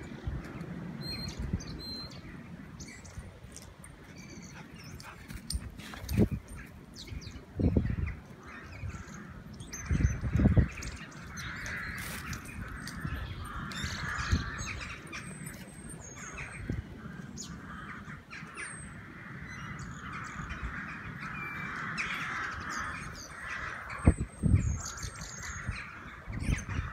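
Morning birdsong: many birds chirping and singing in short high calls over a steady chorus. A few dull low thumps break in, the loudest about ten seconds in and near the end.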